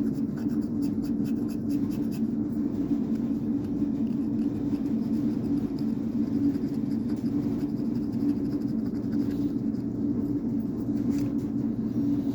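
Small rusty hand tools being handled and rummaged through, with light scraping and clicking, over a steady low hum.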